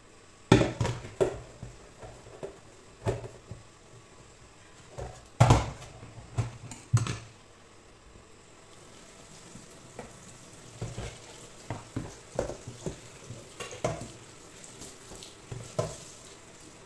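Stainless steel cooking pot being scrubbed by hand over a steel sink: irregular clunks and clatters of metal on metal, with a few loud knocks in the first seven seconds and lighter, quicker ones later.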